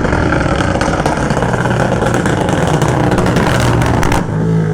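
Motorcycle engine running steadily under loud, rough noise, with a brief drop in level about four seconds in.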